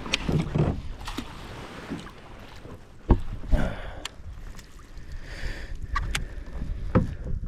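Hooked largemouth bass splashing and thrashing in the water beside a kayak as it is brought in, with two sharp knocks against the kayak, about three seconds in and near the end.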